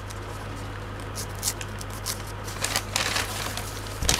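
Christmas wrapping paper on a small box being slit with a multitool knife blade and torn open: a run of short crinkles, scrapes and rustles, busiest about three seconds in. An electric fan hums steadily underneath.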